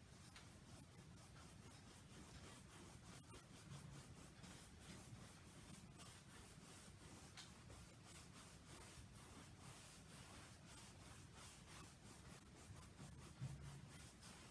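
Faint, irregular scratching of a paintbrush scrubbing over a stretched canvas, blending wet acrylic paint into a soft mist.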